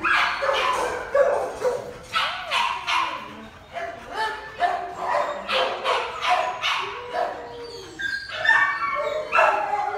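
Dogs in shelter kennels barking over and over, with many barks in quick succession throughout.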